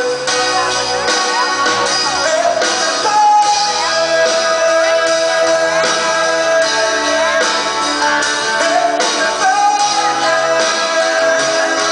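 Live band music without lyrics: a lead melody of long held notes, several sliding up into pitch, over guitar accompaniment.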